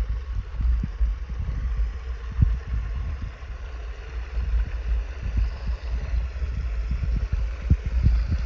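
Water from an electric bilge pump spraying through the PVC spray bar into a highbanker's hopper and running down the sluice, a steady hiss. Under it is an irregular low rumble with short thumps, which is louder than the water.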